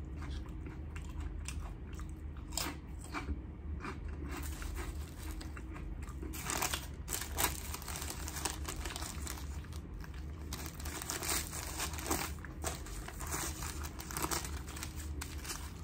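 Chewing and crunching crisp chips, then crinkling and rustling of white deli paper as a wrapped chopped cheese sandwich is unwrapped, the crackling getting denser from about six seconds in.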